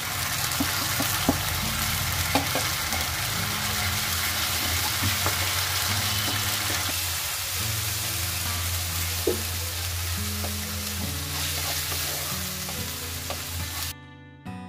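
Onion and spice masala sizzling in oil in a non-stick kadhai while a spatula stirs it, with light scrapes and taps against the pan. The masala is being fried (bhuna) just after the ground spices went in. The sizzle cuts off abruptly near the end, leaving soft background music.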